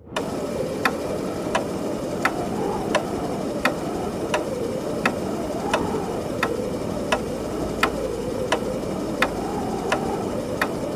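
Steady clock-like ticking, about three ticks every two seconds, over a continuous low rushing noise.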